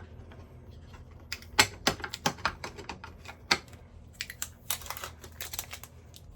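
Irregular sharp clicks and knocks of hard plastic parts of a new Nespresso Vertuo Next coffee machine being handled and fitted together. They come in two flurries, the first a little over a second in and the second past the middle.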